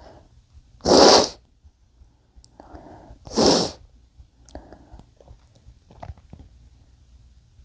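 A man sneezing muffled twice, about two and a half seconds apart, with a quieter hitching breath just before the second sneeze and a few faint breaths after.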